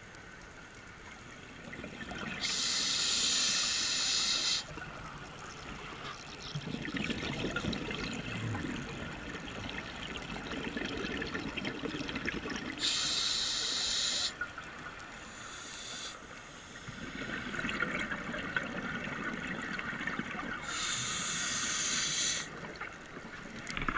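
Scuba diver breathing through a regulator underwater: three hissing inhalations about eight to nine seconds apart, each followed by a longer bubbling exhalation.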